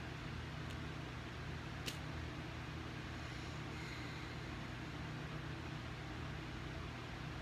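Steady low mechanical hum with hiss, with two small clicks about a second apart early on, the second one louder.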